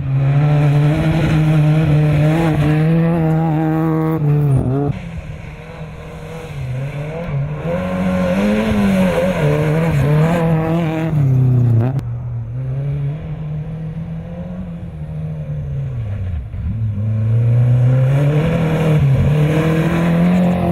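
Rally car engine running hard, its pitch rising and falling as it revs through the stage. The note drops suddenly twice, at about five and twelve seconds in.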